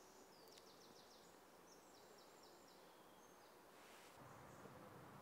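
Near silence of woodland with a small bird's faint, high song: quick runs of repeated chirping notes from about half a second to three and a half seconds in.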